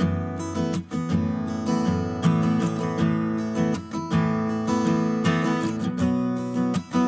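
Background music: a strummed acoustic guitar playing a steady rhythm, with short breaks between phrases.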